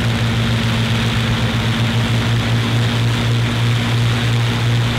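Avro Lancaster NX611's Rolls-Royce Merlin engines running with their propellers turning: a steady, even engine drone with a strong low hum.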